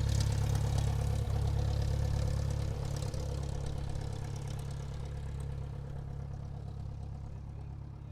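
Airplane engines running at taxi: a steady low rumble with a few steady hums above it, growing gradually quieter.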